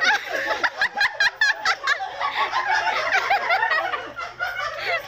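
Several people laughing at once, their voices overlapping, with a run of quick repeated laughs about a second in.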